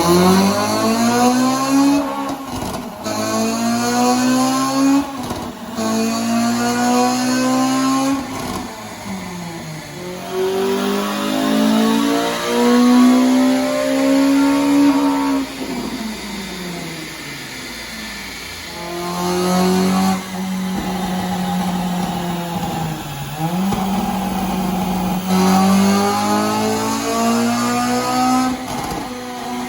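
Honda Civic FN2 Type R's 2.0-litre four-cylinder VTEC engine revving hard on a rolling road. Its pitch rises in repeated pulls and drops back between them, with a long fall near the middle. The exhaust crackles as the throttle closes, from a custom map tuned for noise.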